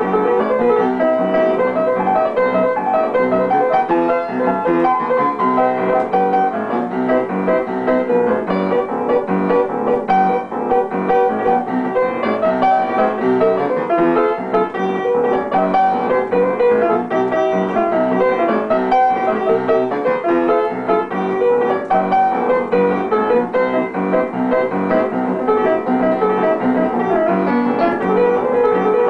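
Upright piano being played solo, a continuous tune of melody over chords at a steady level.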